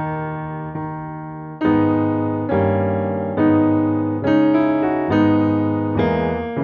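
Instrumental background music: piano chords struck about once a second, each ringing and fading before the next.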